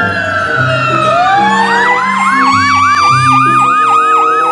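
Fire-truck siren wailing, then switching to a rapid warbling yelp of about three sweeps a second from about a second and a half in. Background music with a simple bass line plays underneath.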